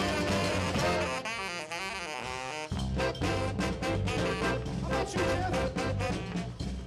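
Tenor saxophone soloing over a live band with bass and drums. About a second in the band drops out and the saxophone plays a quick run of notes alone, and the band comes back in just under three seconds in.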